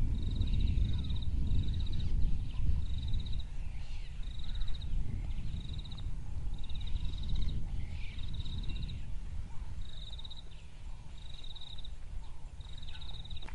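Outdoor wildlife ambience: a short, high, buzzy call repeats evenly about every three-quarters of a second over a low rumble that is strongest in the first few seconds and then eases.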